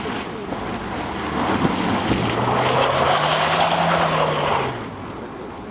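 VW Tiguan engine revving hard as the SUV drifts on snow, with a loud hiss of spinning tyres and thrown snow. The revs climb about a second and a half in, hold for a few seconds, then drop off and the hiss fades near the end.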